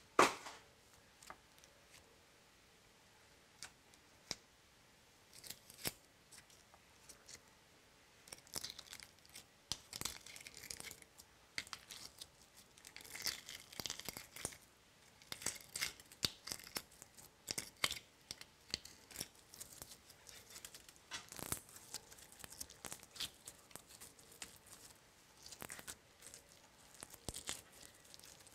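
Slime and small plastic toppings being handled by fingers: sticky crackling, clicking and popping, sparse at first and dense from about a third of the way in, with a single sharp slap just after the start.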